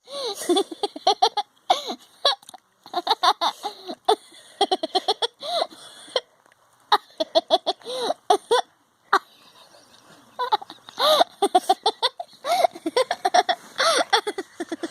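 A person laughing in repeated fits of quick, high-pitched giggles, several short bursts a second with brief breaths between the fits.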